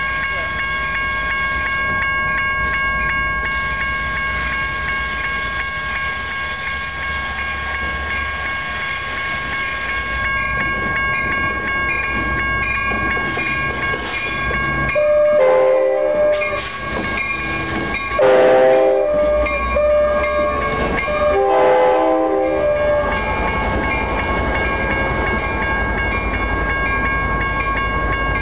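Amtrak F59PHI diesel locomotive running steadily as it pulls in, sounding its K5LA chime horn in several blasts about halfway through. Bilevel Superliner passenger cars then roll past.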